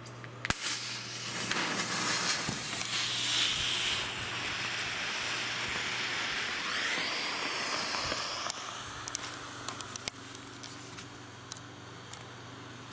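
Supreme Fireworks green smoke grenade hissing steadily as it pours out smoke. There is a sharp click about half a second in. The hiss is loudest for the first several seconds, fades about eight seconds in, and is followed by a few sharp clicks.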